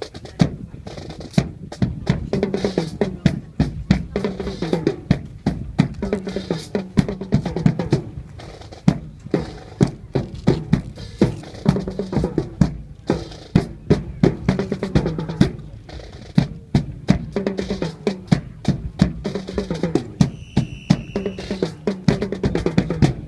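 Drum cadence of snare and bass drums beating a steady, rapid marching rhythm with rolls, accompanying a military rifle drill display. Near the end comes a short, high whistle.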